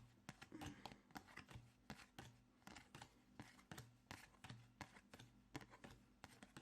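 Faint, quick taps and flicks of trading cards being sorted by hand, several a second as cards are thumbed through and laid on a stack.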